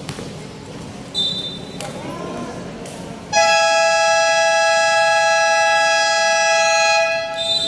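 A referee's whistle blast about a second in, then the game horn sounding one loud, steady blast for about four seconds to signal a timeout, with a second whistle near the end.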